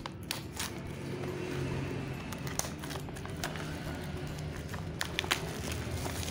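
Clear plastic shrink-wrap crinkling and crackling as hands turn and squeeze a wrapped mini cable reel, with a handful of sharp crackles scattered through.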